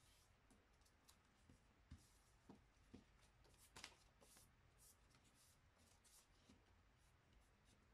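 Faint rustling and crinkling of a sheet of printer paper being folded and handled by hand, with scattered soft taps and crackles, the loudest about four seconds in.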